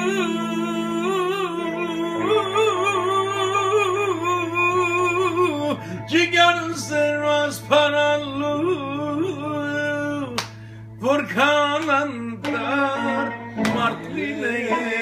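A man singing an Armenian song solo, his voice wavering and ornamented on long held notes, over instrumental backing with steady low sustained notes; the voice breaks off briefly about ten seconds in.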